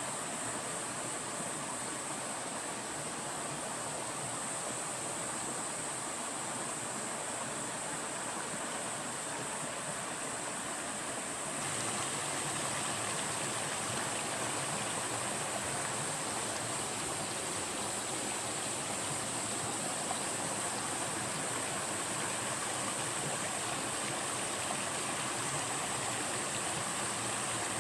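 Mountain valley stream rushing and tumbling over rocks in a steady, continuous wash of water. About twelve seconds in, the rush steps up suddenly to a slightly louder, brighter level and stays there.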